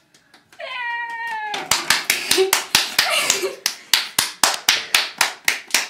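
A single drawn-out vocal cry that falls in pitch, then a few people clapping in a steady rhythm, about five claps a second, with voices faintly underneath.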